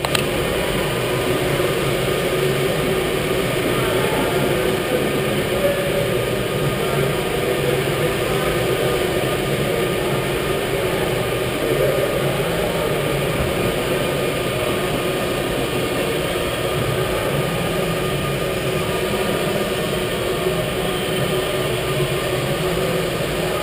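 Steady mechanical din of a large indoor kart-racing hall, even in level throughout, with faint voices in the background.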